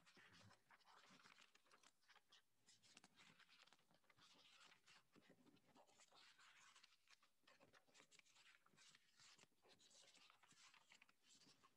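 Near silence with faint rustling and crackling of paper sheets being handled and leafed through.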